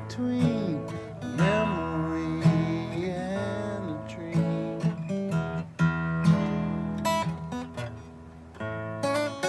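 Acoustic guitar strummed in a steady chord pattern, with a man's voice singing over it, sliding between notes, in the first few seconds.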